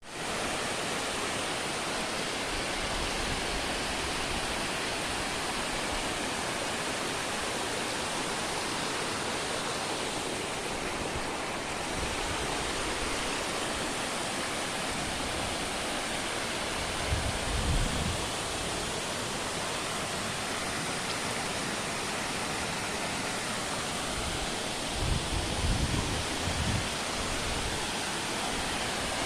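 Waterfall pouring steadily, a dense even rush of falling water. Short low rumbles come twice, once about halfway through and again near the end.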